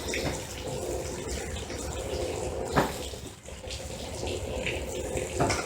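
Two sharp hand claps about two and a half seconds apart, one clap per crunch, over a steady rushing background noise.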